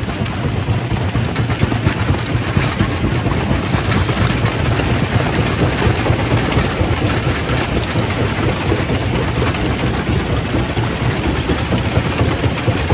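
Primary rock crusher running and breaking stone: a steady, loud, low rumble with continuous rattling and crackling of rock.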